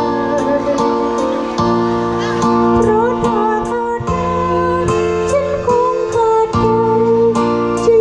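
Music with a steady beat about every 0.8 seconds and a wavering melody line over held notes.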